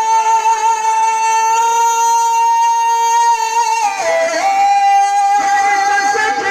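A male naat singer holding one long high note into a microphone over a loudspeaker system, sliding down in pitch about four seconds in and settling on a slightly lower held note.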